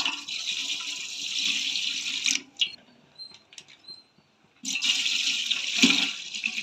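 Milk poured in a stream from a height into a steel pot of heating milk, splashing as it lands. Two pours of about two to three seconds each, with a short pause between them.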